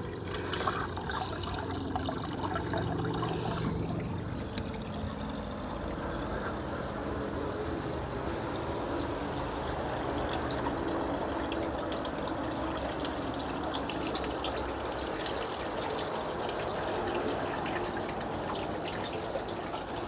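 Water from a pump-fed, hand-carved wooden fountain trickling and splashing steadily down the carving.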